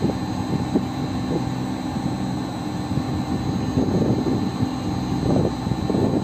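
York air-cooled chiller's condenser fan motors running: a steady low mechanical drone with rushing air. The fans are being switched on one at a time from the controller in an individual test run.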